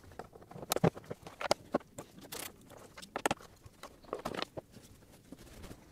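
Irregular light clicks and knocks of parts and tools being handled while working in a car's engine bay, with a few sharper clicks about a second apart.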